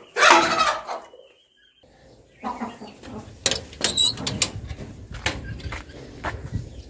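Chicken squawking loudly in the first second. After a short lull come scattered clucks and clicks over a low rumble.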